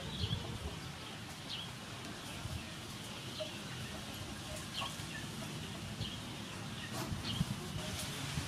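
Chickens in the background, giving short high peeps about once every second or so over faint steady background noise.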